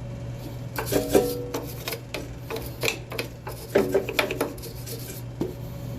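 A steel wire brush scrubbing a treadmill pulley in a run of short, uneven rasping strokes: cleaning the pulley to stop the belt squeaking.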